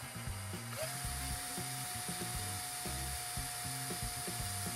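Handheld power drill spinning up about a second in, then running at a steady whine as a small bit drills into a 3D-printed PLA test piece. Background music with a steady beat underneath.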